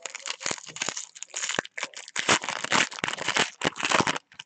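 Foil wrapper of a football trading-card pack being torn open and crinkled in the hands: a dense crackling rustle with sharp crinkles, loudest in the second half, stopping just before the end.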